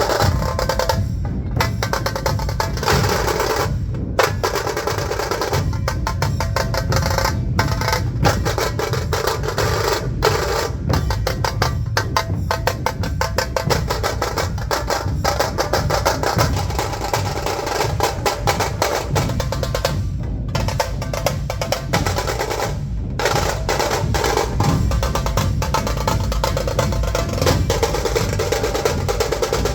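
A dhol-tasha ensemble playing: large dhol drums beating under rapid rolls on the tasha drums, loud and driving, with a few short breaks where the whole group stops together for a moment.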